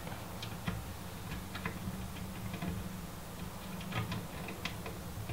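Screwdriver driving a power supply's mounting screws into the back of a computer case: faint, irregular small clicks and ticks over a steady low hum.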